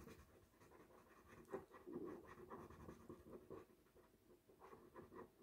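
Faint scratching of a black ink pen on paper as it colours in a small solid area with short, irregular strokes.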